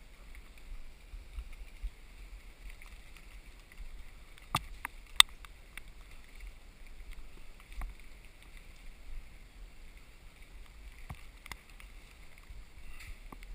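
A hiker walking on a forest trail: scattered sharp cracks and clicks of footsteps on twigs and rock, a quick cluster of three about five seconds in with the last the loudest, over a steady low rumble.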